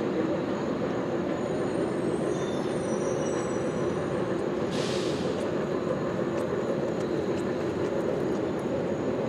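Steady mechanical rumble of a running vehicle or machine, with a short hiss about five seconds in.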